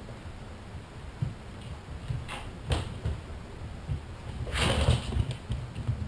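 Two cats scuffling on a wooden floor: two sharp taps a little over two seconds in, then a louder half-second rushing scrape near the five-second mark.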